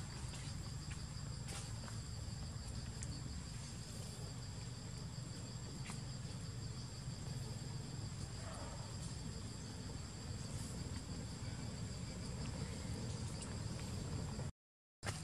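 Steady insect chorus, a continuous high-pitched drone, over a low background rumble. The sound cuts out completely for about half a second near the end.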